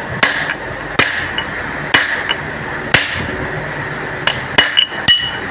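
Hammer lightly tapping a steel pin used as a punch, staking the cam gear bush into a Honda CG125 engine case so it sits tight and stops the cam gear's play. The sharp metallic taps ring briefly and fall about once a second, then come quicker, four in a row, near the end.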